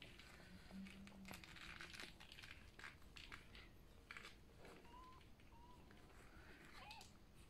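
Faint suckling clicks and crackle from newborn golden retriever puppies nursing at their mother, with a few brief thin squeaks about five seconds in and again near the end.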